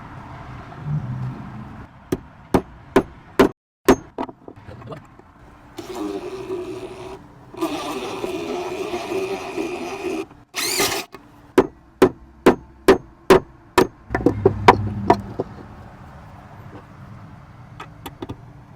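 Hammer strikes on a screw in wood, in two runs of sharp blows about two a second. Between them an impact driver runs in two stretches of a few seconds, driving the screw home, with a loud short burst near the end of its run.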